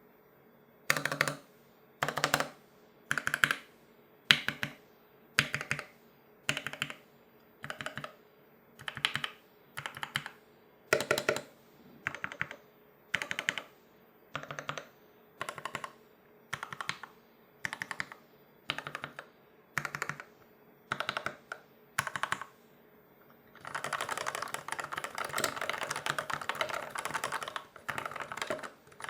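Keystrokes on a Novelkeys NK65 aluminum mechanical keyboard with lubed ZealPC Turquoise Tealios linear switches. Short clusters of key presses come about once a second for over twenty seconds. After a brief pause, fast continuous typing fills the last five seconds or so.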